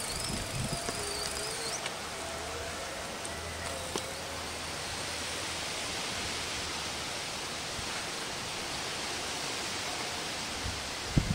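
Steady outdoor street ambience, mostly an even hiss, with a faint low hum for a few seconds in the first half and a brief knock near the end.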